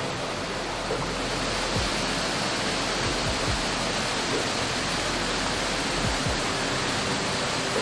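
Steady rushing of water, an even hiss, with a few soft low thumps scattered through it.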